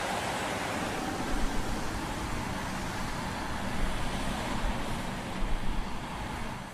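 Volvo XC90 T8 SUV driving at speed: a steady rush of tyre and wind noise, with a few low thuds.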